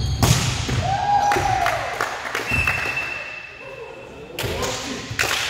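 Volleyballs being struck and hitting a hard gym floor: a run of sharp thumps and slaps, several close together in the first couple of seconds and two more near the end, with a couple of brief squeaks between them.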